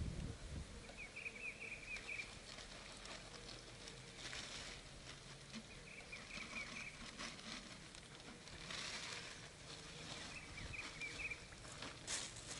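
Faint outdoor ambience: a short, rapid, high trilling call repeats three times, about every four to five seconds, over light rustling and handling noise, with a dull thump at the start.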